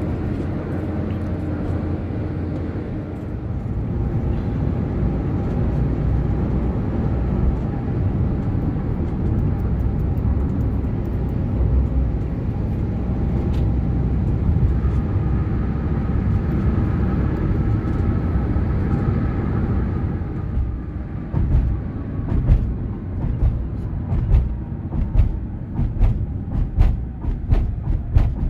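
Cabin noise inside a Toyota HiAce Premio shuttle van on a toll road: a steady rumble of tyres and engine. About three-quarters of the way through it turns into a run of thumps, roughly one a second, as the van slows over rumble strips before a toll gate.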